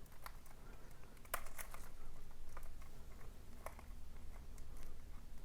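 Knife blade cutting and picking at the wrapping of a cardboard CD digipak: scattered short, scratchy clicks and crinkles, the sharpest a little over a second in.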